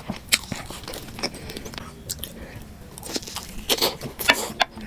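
Close-up mukbang eating sounds: wet chewing and biting with sharp, crackly mouth clicks. A few clicks are spaced through the first three seconds, and they come thick and fast in the last second and a half.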